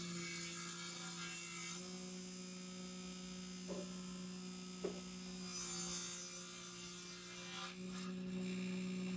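A steady low hum, with two faint light knocks in the middle.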